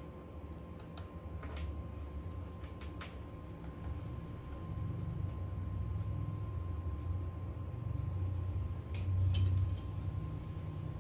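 Small metal repair tools clicking and scraping in light, scattered strokes, with a louder cluster of clicks near the end. Under them runs a steady low hum with a faint steady whine.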